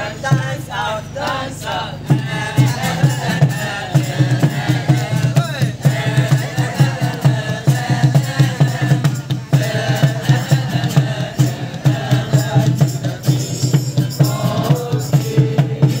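A group singing a Christmas carol together to music. A steady low beat comes in about two seconds in.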